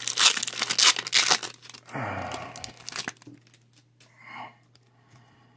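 Foil Pokémon booster pack wrapper crinkling and tearing open by hand: a quick run of sharp crackles in the first second and a half, then fainter rustling as the cards are pulled out.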